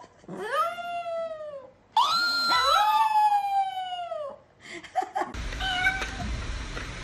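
Chihuahua howling: two long howls, each rising and then sliding slowly down in pitch, the second the longer. About five seconds in they give way to background music and clatter.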